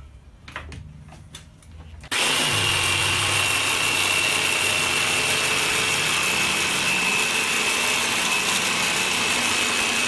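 A few light clicks and knocks as a Bosch jigsaw is set on a board, then about two seconds in the jigsaw starts and runs steadily with a constant high whine, cutting out a template from scrap wood.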